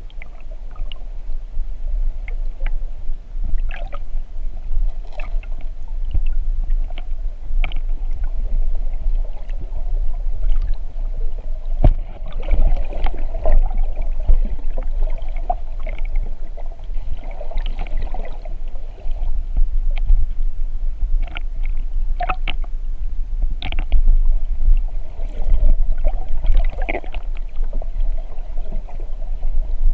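Muffled underwater sound picked up by a GoPro in its waterproof housing: a steady low rumble of moving water with scattered sharp clicks and knocks.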